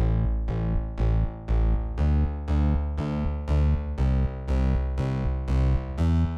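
Background music: keyboard or synthesizer notes played in a steady, even rhythm, about two or three notes a second.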